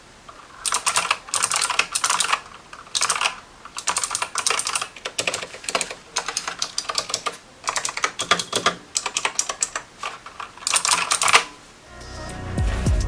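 Typing on a computer keyboard in quick bursts of keystrokes separated by short pauses. Music comes in near the end.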